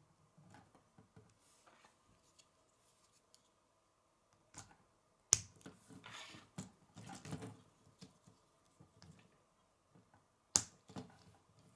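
Plastic K'nex pieces being handled and snapped together: two sharp clicks about five seconds apart as parts lock into place, with softer clattering of pieces between them.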